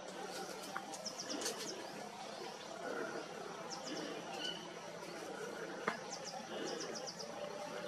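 Small birds chirping in short runs of three to five quick high notes, several times over, above a faint steady outdoor hiss. One sharp click sounds about six seconds in.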